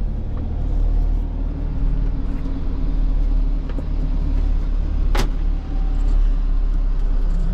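Fendt 412 Vario tractor's diesel engine running steadily as it drives, heard from inside the cab as a low, even rumble. A single sharp click sounds about five seconds in.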